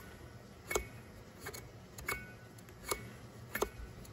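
Old shop vac motor's fan and shaft turned by hand, giving a sharp click about every 0.7 s, five in all, some with a brief high ring after. The freshly oiled shaft is starting to move easier.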